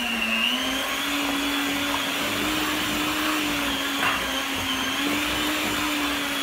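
Electric hand mixer running steadily, its beaters working through a thick batter of flour, eggs, oil and grated zucchini in a metal bowl. The motor's pitch rises a little about half a second in.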